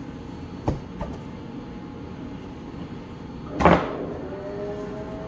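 A raw rack of spare ribs slapped down flat onto a plastic cutting board about three and a half seconds in, after two light knocks about a second in, over a steady drone of kitchen ventilation.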